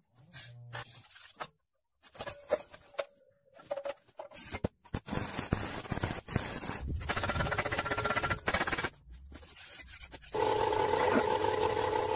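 Short, chopped-up bursts of workshop metalworking, with an abrasive disc grinding steel through the middle. About ten seconds in, the homemade branch chopper's electric motor starts running with a steady hum.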